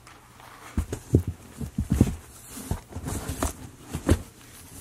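Rummaging through a cardboard box of wrapped boots: a string of irregular dull knocks and thumps as items are shifted against the cardboard, with some rustling of paper and bags.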